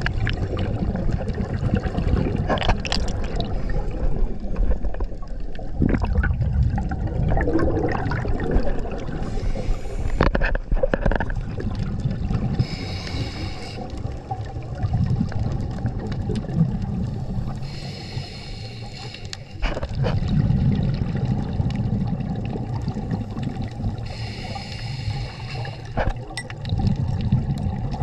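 Scuba diver breathing underwater through a regulator: four hissing inhales, each followed by the low bubbling gurgle of exhaled air.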